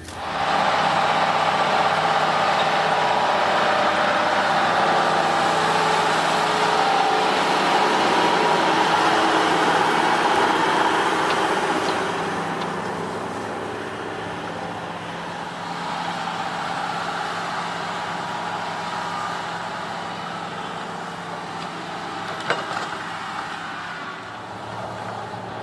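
A large farm machine's diesel engine runs steadily close by. It is loudest for roughly the first half, then grows quieter. There is a brief knock near the end.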